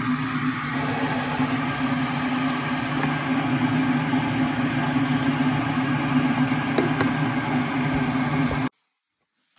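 Electric kettle heating up towards the boil: a steady rushing hiss over a low hum, which stops abruptly about eight and a half seconds in.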